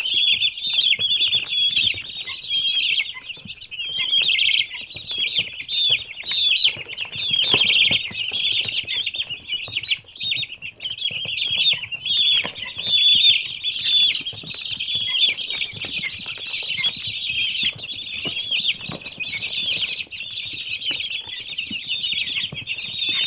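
A brood of baby chicks peeping continuously, many high-pitched chirps overlapping without a break.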